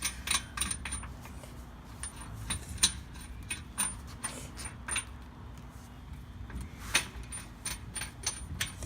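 Lug nuts and a lug wrench clinking in irregular metallic clicks as the spare wheel is fitted and the nuts are put on.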